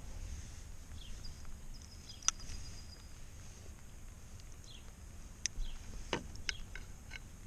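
A few sharp clicks and light taps of pliers on a hook and lure, working the hook out of a small bass's mouth, most of them in the second half, over a low steady background.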